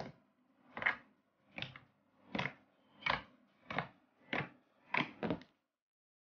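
Fingertips pressing and poking pink tofu slime on a plastic tabletop: about nine short squelches, roughly one every two-thirds of a second. The last two come close together, and the sounds stop about a second before the end.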